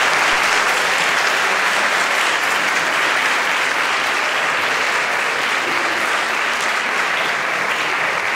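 Lecture-hall audience applauding, steady sustained clapping.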